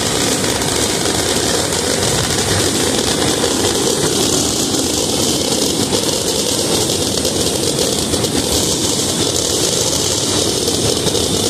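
Fireworks finale: a continuous barrage of shells bursting and crackling, so many at once that they merge into one loud, unbroken rumble with no gaps between reports.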